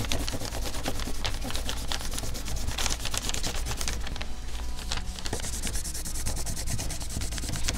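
Crayon pressed down hard and rubbed back and forth over paper laid on leaves, a scratchy scraping of many quick strokes.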